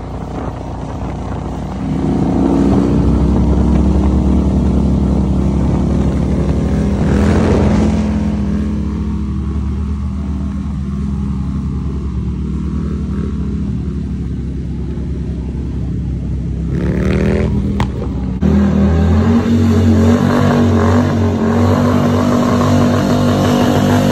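A motor vehicle's engine running steadily while under way. About three-quarters through its pitch rises as it speeds up, then the sound cuts abruptly to another steady engine drone.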